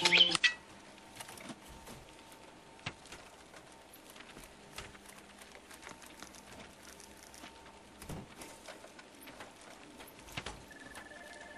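Music cuts off just after the start, leaving faint, irregular light clicks and taps, with a brief faint steady tone near the end.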